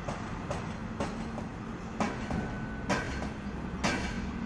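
Irregular sharp knocks and clanks, roughly one a second, several followed by a short ringing tone, from work on the ladder being tied in place. A steady low hum runs underneath.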